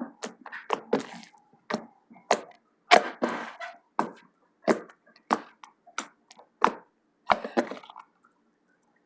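Slime being squished and pressed by hand close to the microphone, making a steady series of sharp, wet pops and clicks about every two-thirds of a second, which stop about eight seconds in.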